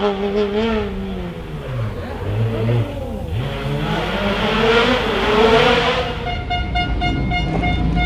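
Renault Clio rally car's engine revving hard and driving away, its pitch rising and falling several times through gear changes.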